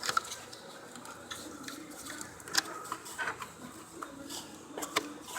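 Scattered sharp clicks and light knocks of parts being handled and fitted by hand, about half a dozen spread through the few seconds, over a faint steady background.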